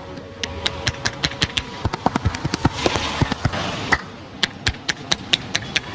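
Rapid rhythmic hand slaps of a percussive head massage, about six or seven sharp strokes a second, with a short break about four seconds in.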